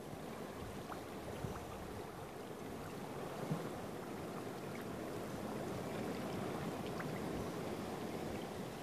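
Steady outdoor water ambience, a soft even rush of gently moving water, with a few faint ticks and a brief knock about three and a half seconds in.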